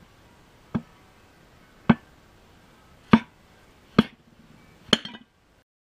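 Open palm striking a folded towel on stacked stone slabs, five sharp thuds about a second apart. The last strike is followed by a short rattle.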